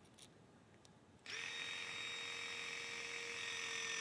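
Milwaukee M18 FORCE LOGIC 6-ton linear utility crimper running a crimp: about a second in, its battery-driven hydraulic pump starts with a steady whine and runs on, slowly getting a little louder, as the ram builds up to full crimping pressure.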